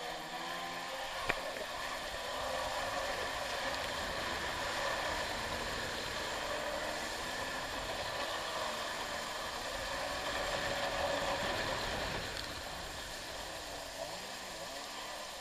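Kawasaki X2 stand-up jet ski's two-stroke engine running under throttle while it carves through the water, its pitch rising and falling with the throttle, mixed with a steady rush of spray and water noise. A single sharp click a little over a second in.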